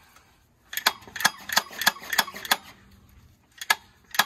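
Hand ratchet clicking in a steady series, about three clicks a second, with a pause of about a second before it starts again near the end, as it works a bolt on the UTV's clutch.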